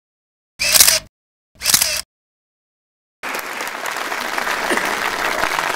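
Two short sound-effect bursts over the studio logo, then, about three seconds in, an audience applauding.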